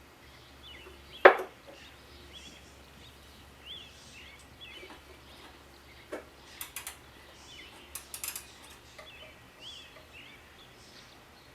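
Birds chirping in the background, with a sharp knock about a second in and a lighter knock and a few small clicks later: hand tools working on the carburetor bowl nut.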